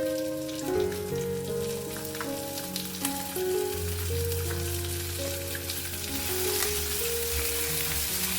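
Food frying in hot oil in a pan, a steady sizzle with scattered crackles that starts suddenly at the beginning, under soft background music.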